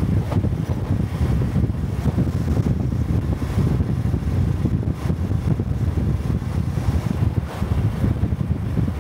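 Honda Cub 125 cc single-cylinder four-stroke motorcycle riding along, its engine and exhaust under a steady low rumble of wind buffeting the microphone.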